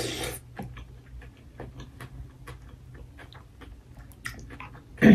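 Close-miked eating sounds: a short slurp from a spoon at the start, then many small scattered clicks of chewing and a metal spoon tapping in a glass food container. A brief louder sound comes near the end.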